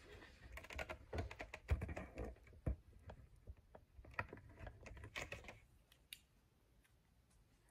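Handling noise of a camera being turned and repositioned on its mount: a quick run of light clicks, taps and rustles that dies away about six seconds in.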